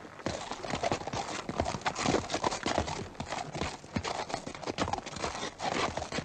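Horse hoofbeats: a fast, irregular run of hoof strikes clip-clopping on hard ground.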